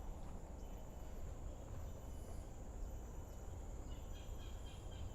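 Outdoor garden ambience: a steady high hum and a low rumble, with faint bird chirps now and then, a few together about four seconds in.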